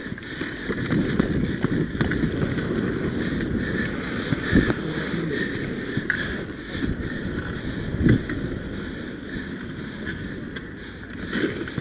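Inline skate wheels rolling steadily on a hard court during roller hockey play, with two sharp knocks about four and a half and eight seconds in.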